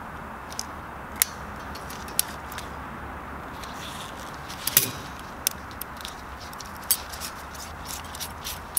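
Sharp metallic clicks and clinks of steel piston-ring pliers and a piston ring being fitted onto a piston, over a steady low background noise. The clicks come singly and irregularly, the loudest about halfway through, with a quicker run of them near the end.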